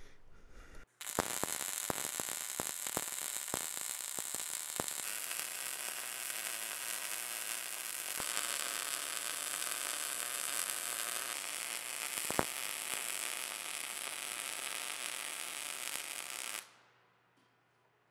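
MIG welding arc crackling and sizzling as a finish bead is run. It starts about a second in with a few sharp pops, settles into a steady crackle, and cuts off suddenly near the end when the trigger is released.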